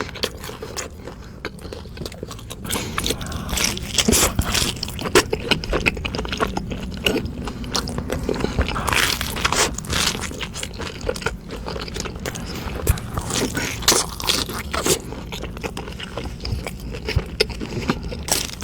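Close-miked eating: biting into and chewing food, with many quick sharp clicks throughout.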